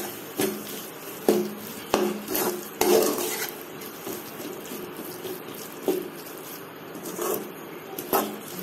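A metal spatula scraping and knocking against a metal pot while stirring a thick, nearly dry squid fry: irregular clatters, frequent in the first three seconds and fewer after.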